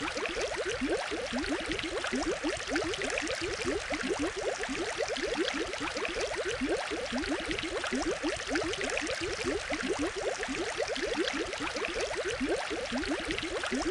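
Aquarium water bubbling: a steady stream of small air bubbles, each a short upward-gliding blip, several a second, over a constant watery hiss.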